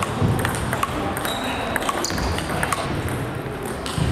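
Table tennis ball clicking sharply against paddles and table in a rally, with more clicks from play at other tables and the general noise of a busy sports hall; a few brief high squeaks sound in between.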